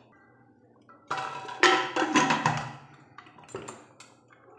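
Aluminium pressure cooker lid clanking against the pot as it is fitted and locked shut: several sharp metal knocks with a short ring, then a few lighter clicks near the end.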